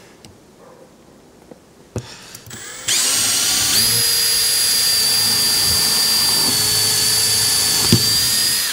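Makita 18V cordless drill boring through the fibreglass side of a boat. After a quiet start with a single click about two seconds in, the motor spins up with a short rising whine about three seconds in. It then runs at a steady high whine for about five seconds and stops.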